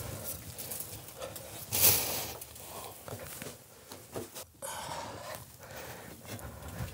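A person breathing hard, with rustling and scuffing of clothing and gear, while climbing down into a narrow hole; one louder rustle about two seconds in.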